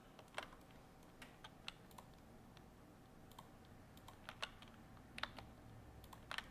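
Faint, irregular clicks of a computer keyboard and mouse, about a dozen scattered through, over a low steady hiss.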